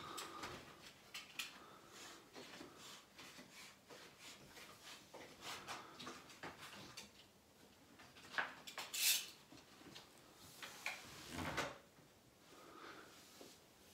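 Wallpaper being trimmed and handled by hand: scattered small clicks, scrapes and paper rustles, the loudest a short rustle about nine seconds in.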